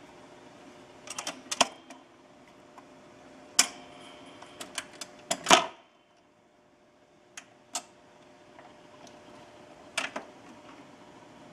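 Mechanical clicks and clunks from a 1958 Columbia portable phonograph's VM record changer, over a faint steady hum. The clicks come in irregular groups, and the loudest clunk comes about halfway through.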